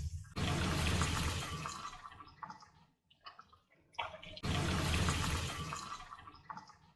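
Marinated chicken pieces frying in hot sunflower oil: a hissing sizzle starts suddenly twice and dies down over a couple of seconds each time.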